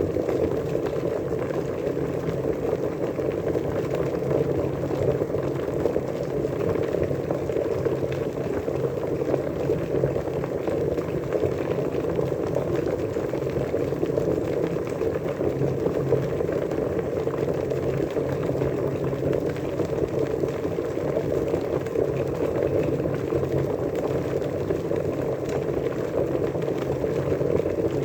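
Water at a rolling boil, a steady, dense bubbling with no breaks.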